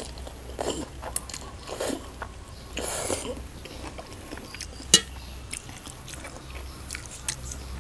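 Close-miked eating: a forkful of rice noodles slurped, then chewed, with scattered wet mouth sounds and a few short noisy bursts. Two sharp clicks, one at the start and one about five seconds in.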